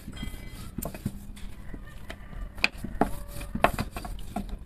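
A long, thin wooden rolling pin (oklava) rolling and knocking on a wooden pastry board as a sheet of dough is rolled out, with a handful of irregular knocks.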